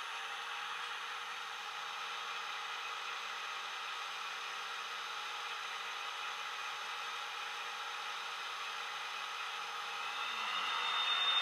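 ESU LokSound decoder's diesel sound for a model Euro Dual locomotive, played through a small bass-enhanced speaker: the engine idling steadily with its cooling fan whirring. About ten seconds in the sound grows louder as the engine powers up.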